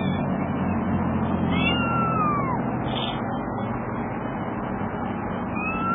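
Kitten meowing twice: a high call that rises slightly and then falls, about a second and a half in, and another beginning near the end, over steady background noise.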